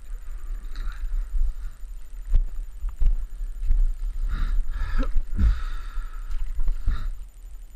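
Low rumble of wind buffeting and handling noise on a body-worn camera's microphone, with a few knocks.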